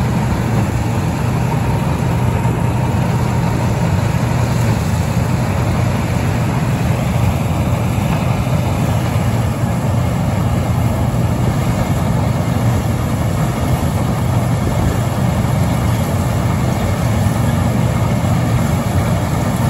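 Massey Ferguson 630 S self-propelled combine harvester running steadily while it cuts and threshes standing grain, its engine and threshing machinery making one constant, even noise.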